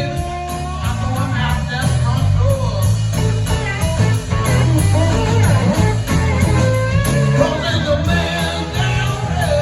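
Live blues-rock band playing loudly: wavering electric guitar lead lines over bass and a steady beat of drums and cymbals.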